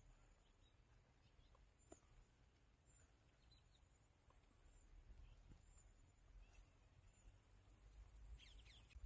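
Near silence outdoors: faint, scattered high chirps of small birds, with a quick run of chirps near the end, over a low rumble.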